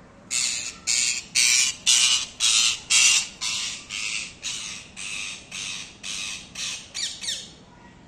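A green parrot squawking over and over, about fifteen harsh screeches at roughly two a second. They are loudest in the first few seconds and grow softer toward the end.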